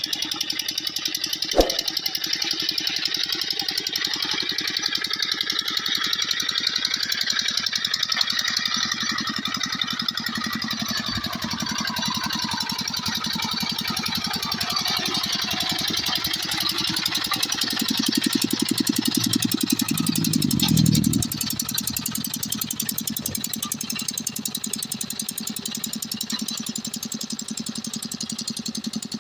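Single-cylinder diesel engine of a two-wheel hand tractor running steadily with a rapid even chug as it pulls through rice-paddy mud. There is a sharp click about two seconds in, and a louder, deeper spell of engine noise about two-thirds through that drops off suddenly.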